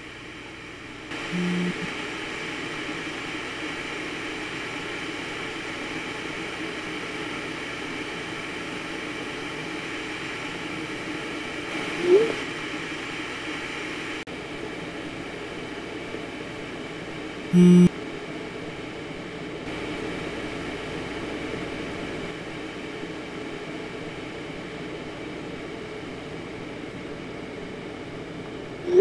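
Steady low room hum with short phone message sounds over it: a brief buzz about a second and a half in and a louder one near eighteen seconds, and quick rising blips around twelve seconds and at the very end, as text messages are sent and received.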